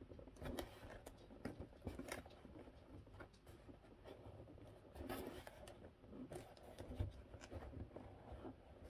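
Fingernails scratching and picking at packing tape on a cardboard box. Faint, irregular scrapes and small clicks, a few louder ones about two, five and seven seconds in.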